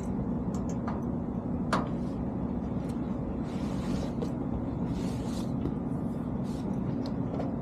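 Steady mechanical hum of rooftop HVAC units running, with scattered clicks and a few short scrapes of access panels and filters being handled.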